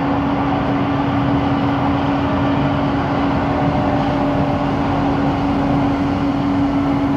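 Cabin noise of an LRT Jabodebek train in motion: a steady rumble with a constant humming tone.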